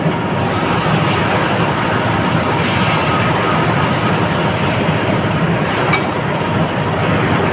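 Steady loud machine-like noise with no clear rhythm, and two light clicks, one about half a second in and one near six seconds.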